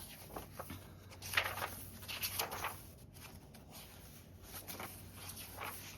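Paper and craft pieces being handled, with soft rustles and scrapes coming every second or so; the loudest rustle is a little over a second in.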